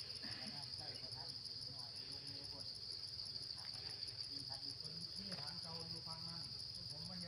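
Steady high-pitched insect chorus droning without a break, with faint voices in the background now and then.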